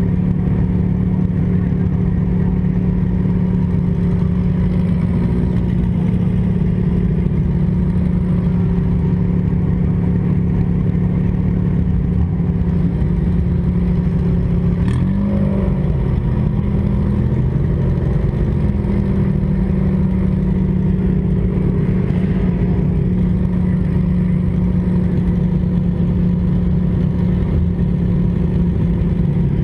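Demolition derby car's engine running steadily, heard from on board, with a brief dip and rise in revs about halfway through. A sharp knock comes at about the same moment.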